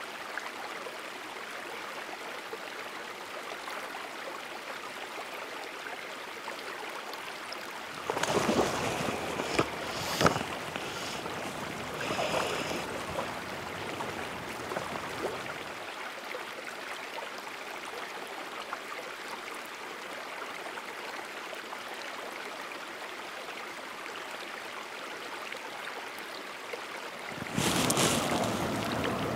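Shallow creek water flowing in a steady rush. The rushing grows louder and fuller about a third of the way in, with a few short knocks and splashes, then again near the end.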